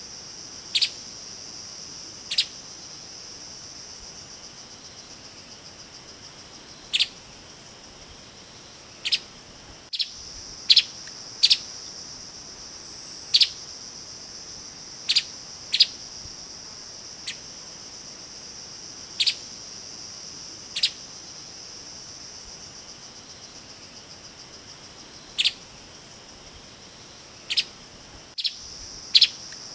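Streaked spiderhunter giving short, sharp single calls at irregular intervals, now and then two in quick succession. Behind them is a steady, high-pitched insect drone.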